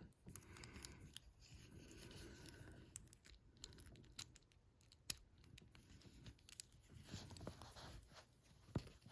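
Lock pick and tension tool working the pin stack of a Comando padlock: faint scratching and small metallic clicks, with one sharper click about five seconds in.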